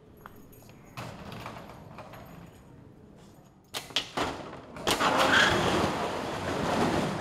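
Roll-up shop shutter being worked: a few sharp clicks a little under four seconds in, then, from about five seconds, a loud running rattle as the shutter is pushed up.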